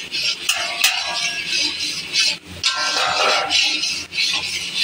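Spatula scraping and stirring a dry powdery sweet mixture around a pan, a steady rasping scrape with a couple of sharp clicks of the spatula against the pan in the first second.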